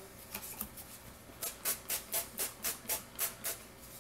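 Olive oil sprayer spritzing a pita: a quick run of about ten short sprays at roughly four a second, starting about a second and a half in.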